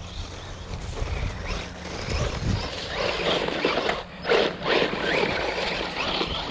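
Small electric RC buggy driving off-road: motor whine with tyres crunching over gravel and dry leaves, and a louder rush about four seconds in.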